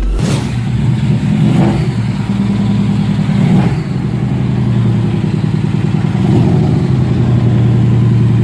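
A 2008 Mitsubishi Lancer ES's four-cylinder engine running steadily, with a couple of short rises in revs.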